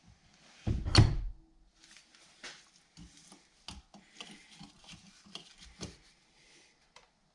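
Hands working a driveshaft's CV joint on a workbench: one heavy metal thud about a second in, then a string of light clicks, knocks and rustles. This is the CV joint being pushed onto the splined shaft until its lock ring engages.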